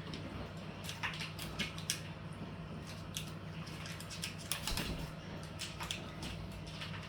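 Irregular sharp clicks and taps from an African grey parrot working at a freezer door, over a steady low hum.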